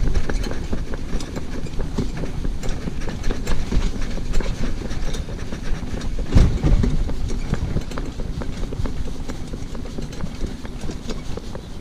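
A pony-drawn driving cart rolling over a tarmac path, its wheels and fittings rumbling and rattling steadily with many small clicks, the Shetland pony's hooves among them. About six and a half seconds in there is one brief louder low bump.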